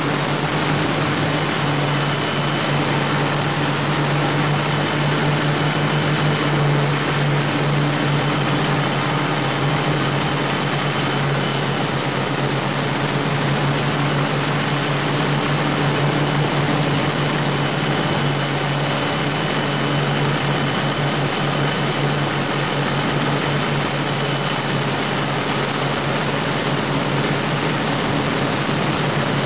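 Twin Scania 12-litre six-cylinder diesel engines of a high-speed boat running steadily at high power, a strong low hum under a dense, even rushing noise that does not change.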